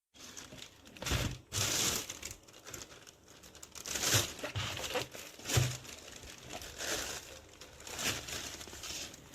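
Plastic packaging crinkling and rustling as it is handled, in a series of short swells.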